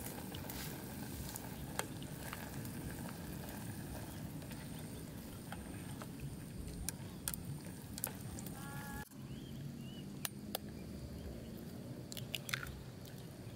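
Instant noodles bubbling in an aluminium camping pot on a portable gas stove, with scattered sharp clicks of chopsticks and a fork knocking against the metal pot.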